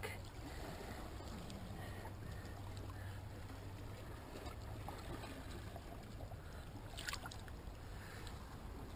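Faint, gentle water movement in a shallow rock pool as hands hold a fish under the surface, over a steady low hum.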